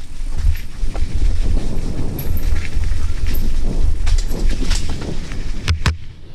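Mountain bike riding fast down a wet dirt trail: wind buffeting the microphone, with the rumble and rattle of the bike over the ground. Two sharp knocks come close together near the end as it hits bumps.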